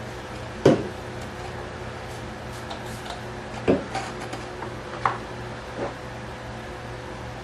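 Four knocks and a few lighter clicks as parts and tools are handled and set down on a work table, the first knock the loudest, over a steady electrical hum.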